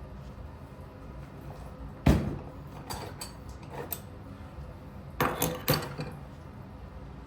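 A sharp knock about two seconds in, a few light clinks, then three quick knocks near the end: hard objects such as tools or a catch container being handled and set down.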